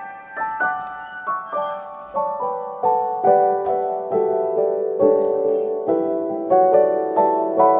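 Background music: a piano-like keyboard playing a gentle melody of single notes, each struck and fading, about two to three notes a second.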